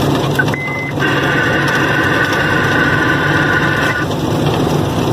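Truck engine running steadily, heard from inside the cab. A short high beep comes about half a second in, then a steady high-pitched whine of several tones starts about a second in and stops about four seconds in.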